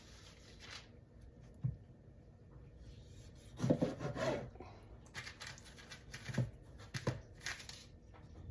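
Soft taps and rustles of tomato halves being set down on a parchment-lined baking sheet, several light knocks in the second half, with a brief faint pitched sound near the middle.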